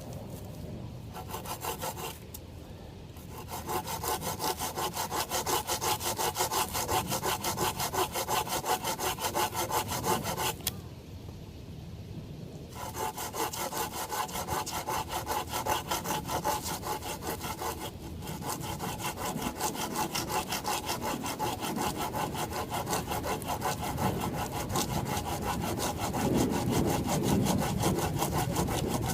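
Hand saw cutting through a dead cottonwood branch in fast, even back-and-forth strokes. It pauses briefly about two seconds in and again for a couple of seconds near the middle, then carries on.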